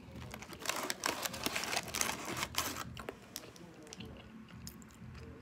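Paper fast-food bag rustling and crinkling in a rapid crackle as a hand digs out fries. It lasts about three seconds, then thins to a few faint clicks.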